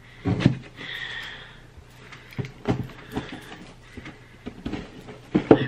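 Scissors snipping and scraping through packing tape on a cardboard box, with scattered clicks and knocks and a brief high squeak about a second in; the loudest strokes come near the end.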